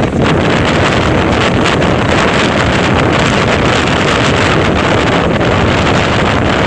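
Strong wind buffeting the microphone: a loud, steady rush with a low rumble underneath.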